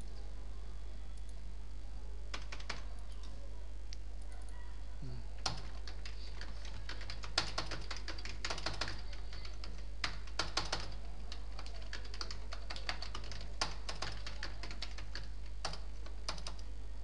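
Typing on a computer keyboard in irregular bursts of keystrokes, with short pauses between words, over a steady low hum.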